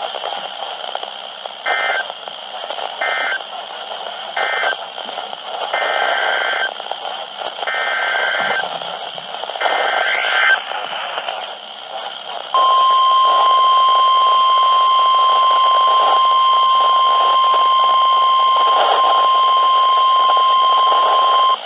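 NOAA Weather Radio alert signals over a radio's static hiss: three short bursts of buzzy digital data, then three longer ones, that close one warning and open the next. These are followed by the steady 1050 Hz warning alarm tone, held for about nine seconds, which announces a new severe thunderstorm warning.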